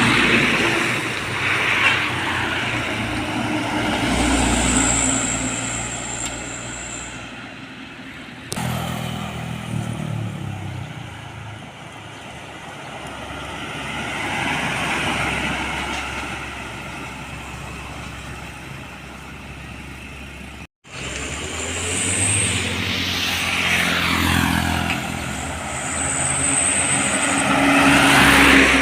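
Large trucks driving past on a road, their engines rising and falling in level as each one goes by. The sound changes abruptly twice, about a third and about two-thirds of the way through.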